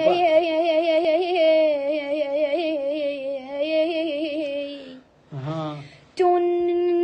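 A young boy singing alone, drawing out long ornamented notes with a quavering vibrato. He pauses briefly about five seconds in, sings a short low phrase, then holds one long steady note.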